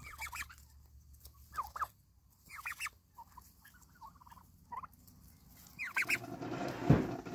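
Domestic turkeys calling: short clusters of high calls, about six times. Near the end a steady rush of liquid being poured starts, with a heavy thump about 7 seconds in.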